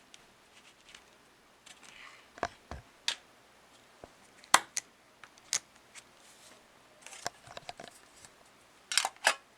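Irregular sharp clicks and taps of small pen parts and accessories being handled and fitted back into their packaging box, with a little faint rustling. The loudest click comes about halfway through, and a quick run of clicks comes near the end.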